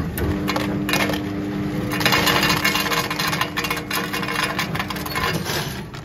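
Push-button ice dispenser running with a steady hum while ice cubes clatter into a plastic cup; the hum stops about five seconds in, as the cup fills.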